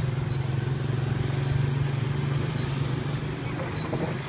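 Motorbike engine running close by, a steady low hum that stops near the end, over general street traffic noise.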